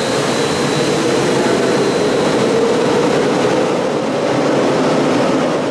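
Loud, steady running of factory machinery: an even rushing noise with a slightly wavering tone throughout.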